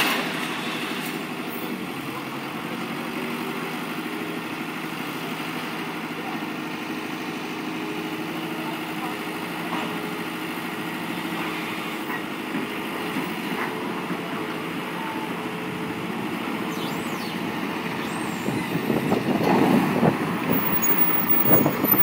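Heavy-equipment diesel engines running steadily, with a louder stretch of rattling and knocking near the end.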